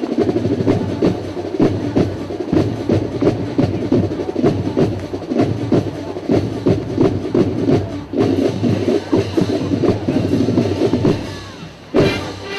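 Drum and bugle corps drum line, with marching snare drums prominent, playing a fast percussion passage with dense, even strokes and a short break about eight seconds in. Near the end the horn line comes in with a loud brass chord.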